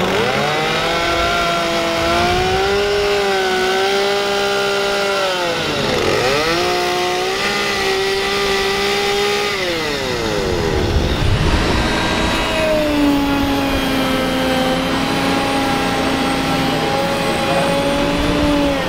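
Gasoline chainsaws carving wood. Twice in the first half the engine drops in pitch and picks up again as the throttle is eased and reapplied. In the second half a steadier, lower-pitched saw runs.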